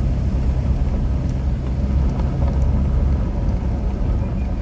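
Four-wheel-drive vehicle driving slowly along soft beach sand: a steady low engine and tyre rumble.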